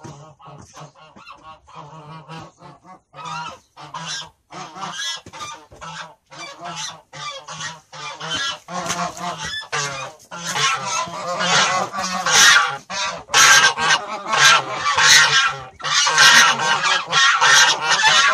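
A flock of farm poultry calling continuously in quick, overlapping honking calls. The calls grow louder and more crowded partway through.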